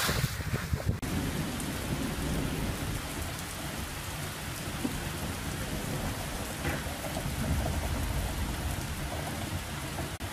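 Heavy rain pouring down on pavement: a steady hiss with a low rumble underneath.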